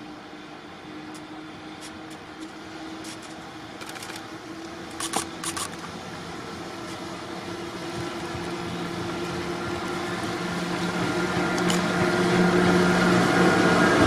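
Container freight train hauled by an EF66 electric locomotive approaching and passing at close range. Its running hum and wheel noise grow steadily louder, with a few sharp clicks about five seconds in.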